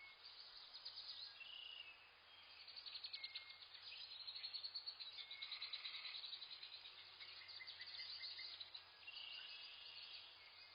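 Several wild birds chirping and calling together in a forest, faint, with short whistled notes and fast repeated trills that are busiest through the middle.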